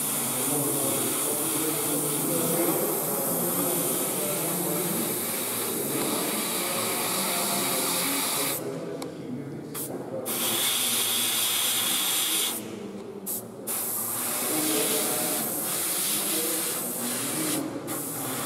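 Airbrush spraying paint in a steady hiss that breaks off twice for about a second, about halfway through and again a few seconds later.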